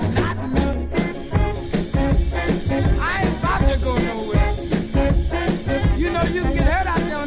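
Early-1960s rhythm-and-blues record playing: an up-tempo band over a steady, heavy beat.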